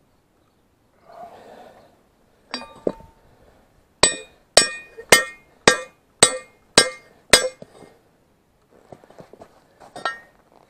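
Hand hammer striking a cracked steel part of a tractor loader attachment to knock the cracked piece off. Two knocks come first, then a run of seven ringing metallic blows about two a second, and one more blow near the end.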